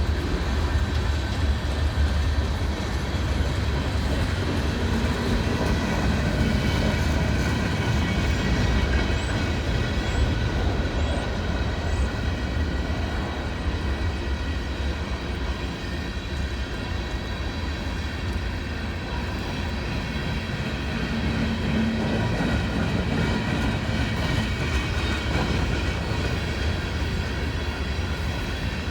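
Freight cars of a long CSX northbound train rolling past, a steady rumble of steel wheels on the rails with faint high steady ringing tones above it.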